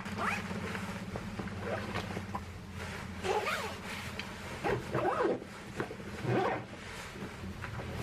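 A zipper pulled in several short strokes, mixed with the rustle of a nylon jacket and backpack fabric being handled.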